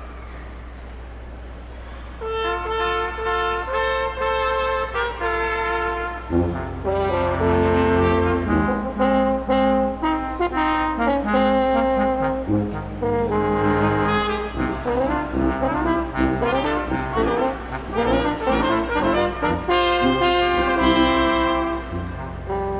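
Brass ensemble playing Christmas music. The upper voices come in about two seconds in, and the low brass joins a few seconds later in full chords.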